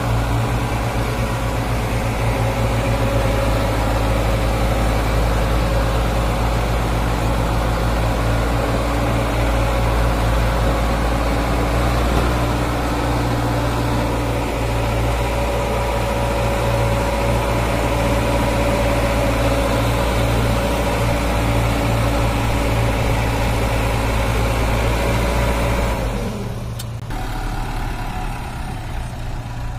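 Sonalika DI 750 tractor's diesel engine running steadily while pulling a trolley loaded with sand through soft sand. About 26 seconds in the sound drops and becomes duller.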